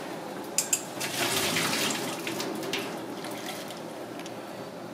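Two sharp clinks as a small saucepan is handled, then hot water and boiled cuttlefish pieces poured from the pan through a mesh strainer, splashing into a stainless steel sink. The pouring is loudest a second or so after the clinks and carries on more softly.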